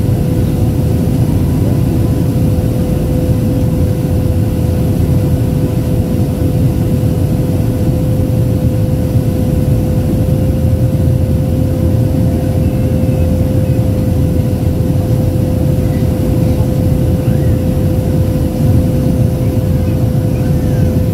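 Steady cabin roar of a Boeing 737-800 on final approach, heard from a window seat over the wing: its CFM56 engines and the airflow make an even low rumble, with a steady tone held just below 500 Hz.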